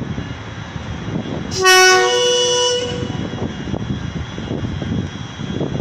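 Air horn of the E 68 005 electric locomotive giving one loud two-tone blast of about a second, starting about a second and a half in, over steady rumbling noise.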